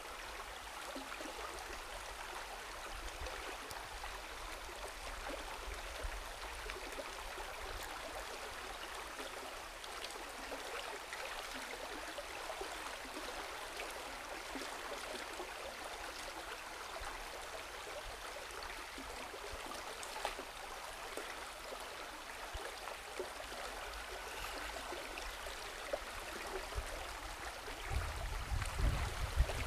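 Shallow stream water running, a steady rush with fine trickling. A low rumble comes in near the end.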